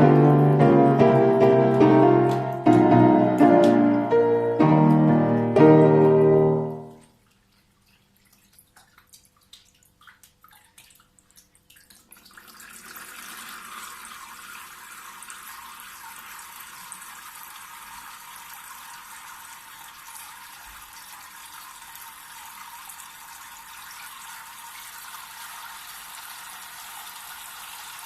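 Background music with plucked, piano-like notes stops about a quarter of the way in. After a few seconds of faint drips, water from a small homemade waterfall fountain starts falling and keeps up a steady, even trickle.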